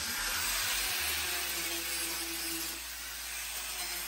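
Angle grinder grinding the metal burner of a gas stove, a steady hiss of disc on metal as the burner is polished.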